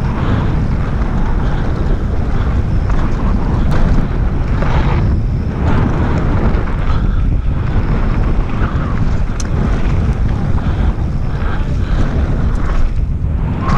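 Wind buffeting the action camera's microphone as a mountain bike rides fast downhill, with the tyres rolling over a loose gravel and dirt trail underneath.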